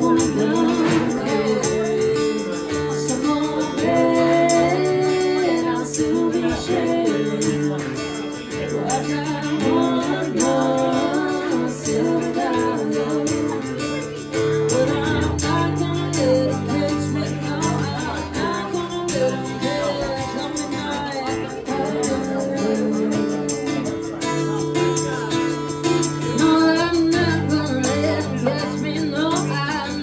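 Live band music: a strummed acoustic guitar and a shaken tambourine, with a woman singing.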